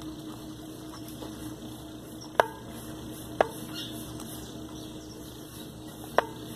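Three sharp knocks on a small plastic plant pot while potting soil is pressed in around a transplanted succulent: one about two and a half seconds in, one a second later, and one near the end. A steady low hum runs underneath.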